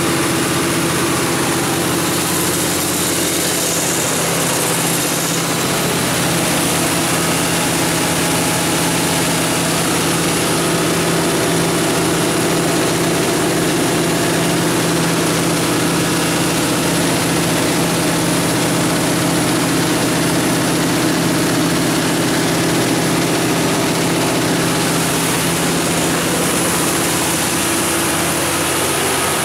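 Cummins GTA19-G2 natural gas engine of a 350 kW generator set running steadily at its rated 1800 RPM (60 Hz), a constant engine drone that holds the same pitch and level throughout.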